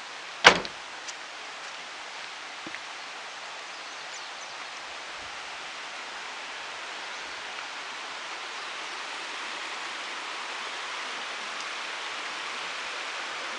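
Stream of storm runoff water running, a steady rushing that grows slowly louder. A single sharp click about half a second in.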